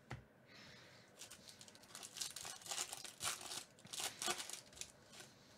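Shiny foil wrapper of a 2019 Topps Holiday baseball card pack crinkling and tearing open by hand, in a run of crackling rips that are loudest in the middle. A brief soft knock comes right at the start.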